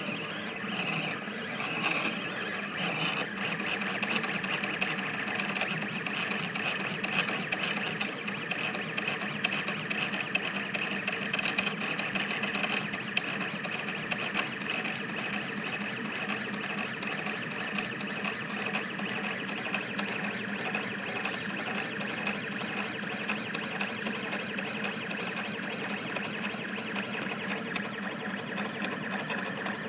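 Stepper motors of a Rostock delta 3D printer running continuously during a fast print (about 200 mm/s), making a busy stream of shifting motor tones as the effector darts over the part.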